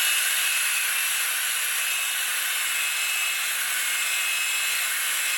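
Electric drill with a polishing pad running steadily, buffing plastic polish into a pinball playfield: an even whirring hiss with a faint steady whine.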